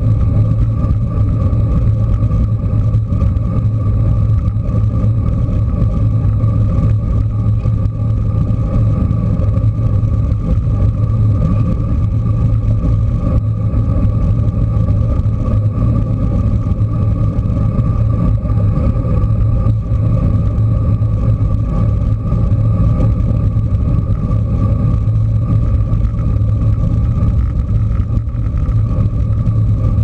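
Wind rushing over the microphone of a camera on a moving bicycle: a loud, steady rumble with a constant low hum under it.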